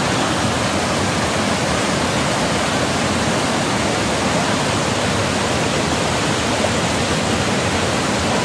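Mountain stream cascading over rocks right beside the microphone: a loud, steady rush of water.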